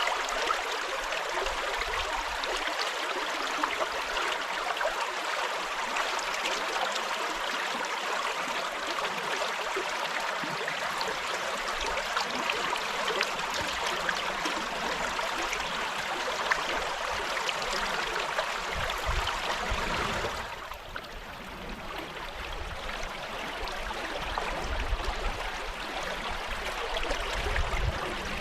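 River water rushing and burbling in a steady hiss. About two-thirds of the way through, the sound turns duller and a little quieter, with low rumbling underneath.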